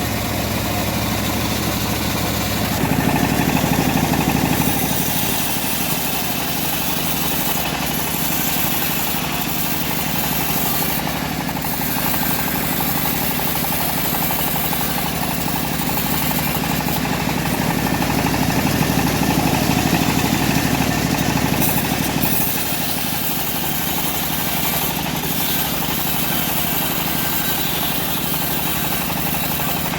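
Engine of a homemade bandsaw mill running steadily, swelling louder around 3 s in and again from about 17 to 22 s in.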